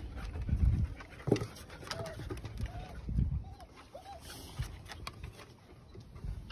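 A dove cooing in the background, a short series of four soft, evenly spaced coos of the same pitch. Soft low thumps and scuffling from puppies playing on the wooden deck close by are loudest in the first second or so.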